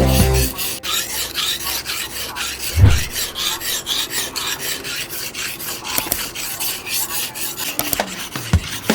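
A hand file rasping on the steel of a forged spearhead in quick, rhythmic back-and-forth strokes, with one dull knock about three seconds in.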